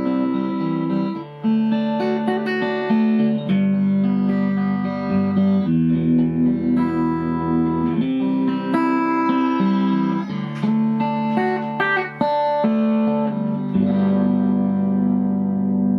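Fender Stratocaster electric guitar played through a Fender Custom Vibrolux Reverb valve amp on its normal channel with the volume at about 3: chords changing every second or two, the last one left ringing for about the final two seconds.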